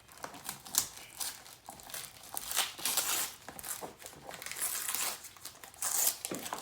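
Gift wrapping crinkling and rustling as a present is handled and unwrapped by hand, in irregular handfuls, louder about two and a half seconds in and again near the end.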